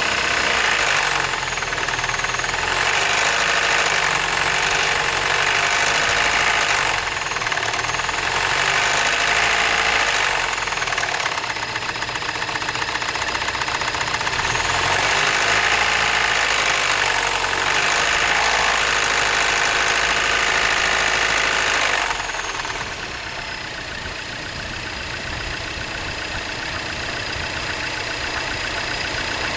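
2007 Mini Cooper engine running with a knock, its speed rising and falling several times, then dropping back to a steadier idle about 22 seconds in.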